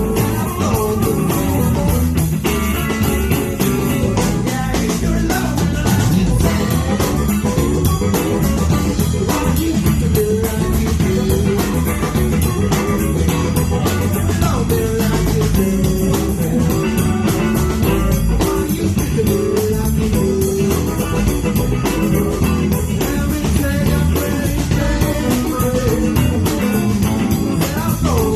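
Blues band playing: electric guitars, bass guitar and drum kit, with a lead line bending in pitch over the steady rhythm.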